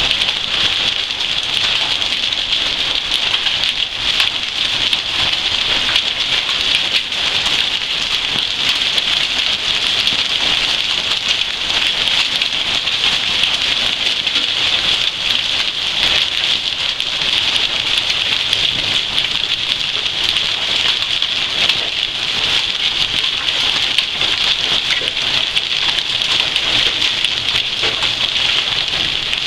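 Hail falling steadily and heavily: a dense, unbroken clatter of many small hits from hailstones striking hard surfaces.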